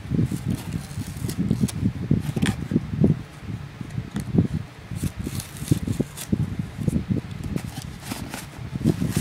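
Knife slitting the tape on a cardboard shipping box, then the cardboard flaps being worked open: irregular scraping and rubbing with scattered sharp clicks.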